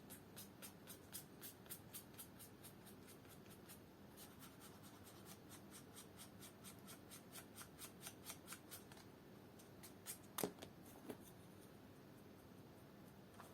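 Quick, even strokes of hand work on the toe of a shoe, faint clicks at about four a second, stopping about nine seconds in. A few louder knocks follow near the end.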